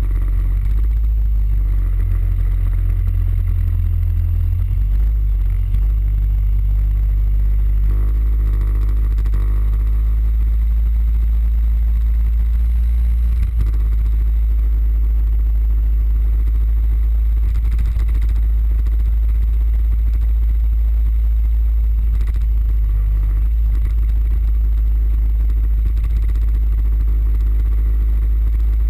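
Suzuki Burgman 650 scooter under way, its parallel-twin engine running steadily under a loud, constant low rumble. The engine's hum stands out a little more for a few seconds near the middle.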